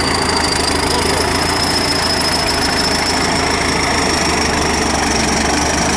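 Engine of a T130 crawler bulldozer running steadily, with a thin high whine that slowly rises in pitch.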